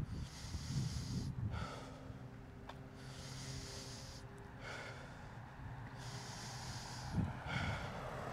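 Heavy breathing of a runner walking to recover after a three-minute running interval, a loud breath every second or two.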